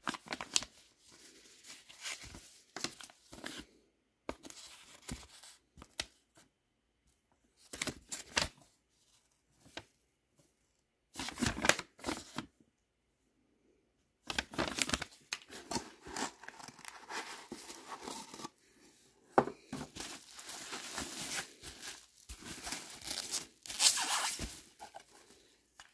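Paper instruction leaflet rustling and crinkling in irregular bursts as it is handled and folded, then plastic bubble wrap crinkling near the end, the loudest sound.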